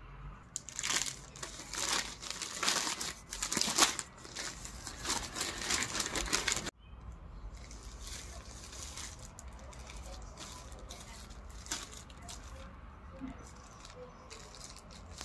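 Packaging crinkling and rustling as it is unwrapped and handled by hand. Loud, dense crackling stops suddenly about seven seconds in, followed by softer rustling of the plastic poly bags.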